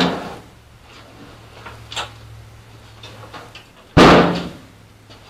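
The steel hood of a 1952 Willys M38A1 Jeep being shut: a bang at the start, a few light knocks, then a louder metal bang about four seconds in with a short ring.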